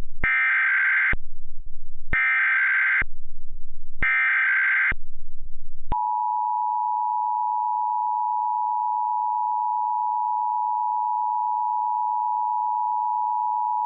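Emergency Alert System tones: three SAME header data bursts, each about a second of shrill digital warbling, a second apart, then the steady two-tone EAS attention signal held for about eight seconds. The header encodes a tornado watch, and the attention signal announces that an emergency message follows.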